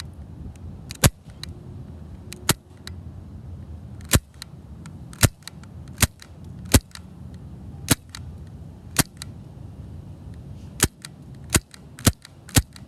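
MK45 BB pistol firing about a dozen sharp shots, roughly a second apart and coming quicker near the end.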